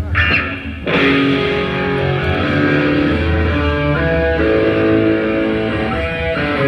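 Amplified electric guitar playing loud sustained chords and notes through a stage PA during a rock band's sound check, coming in sharply about a second in.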